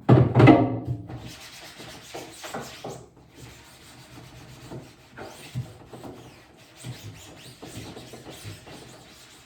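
Cloth rubbing and scrubbing over a wet screen-printing screen with citrus cleaner, an irregular series of wiping strokes. A short, loud sound comes at the very start.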